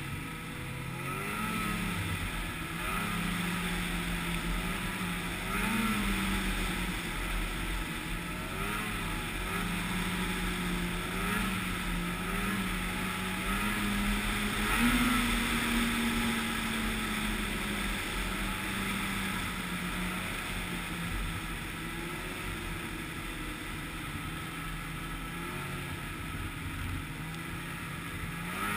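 Snowmobile engine running steadily under a rider's throttle, its pitch rising and falling again and again as the sled speeds up and eases off along the trail, highest about halfway through.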